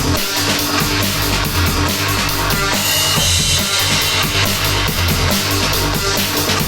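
Background music: loud rock with a driving drum kit and bass drum.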